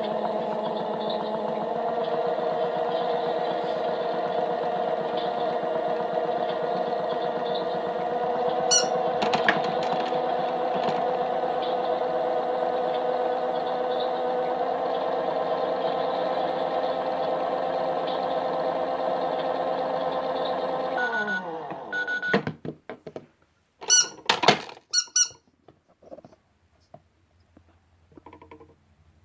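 Toy washing machine's small electric motor running with a steady whine, then winding down with a falling pitch about three quarters of the way through, followed by a few sharp clicks and knocks.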